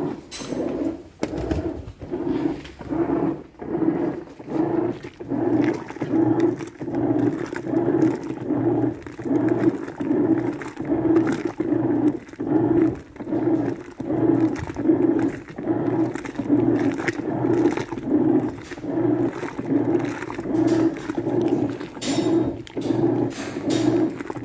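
Brastemp washing machine running a wash cycle, its agitator churning in a steady rhythm of repeated pulses, a little under two a second.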